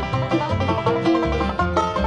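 Bluegrass band playing an instrumental: quick banjo picking over rhythm guitar and a bass line, with no singing.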